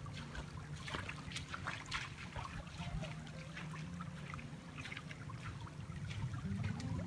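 Water trickling and splashing in a small canyon stream, a steady patter of little splashes, with soft sustained music tones underneath.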